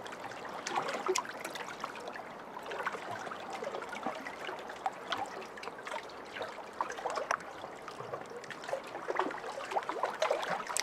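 Pond water lapping and trickling: a steady wash with many small irregular splashes and drips.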